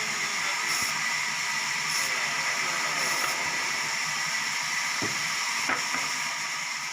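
Sawmill machinery running steadily, a continuous mechanical hiss with a held whine, broken by a few short knocks.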